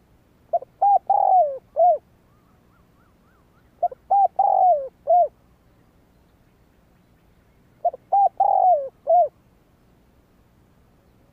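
Spotted dove cooing three times, about three and a half seconds apart. Each phrase is a couple of short coos, a longer coo falling in pitch, and a short final coo.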